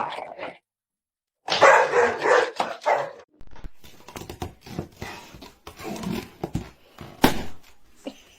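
A dog barking in a few short bursts, followed by a stretch of scattered clicks and knocks with one sharp knock near the end.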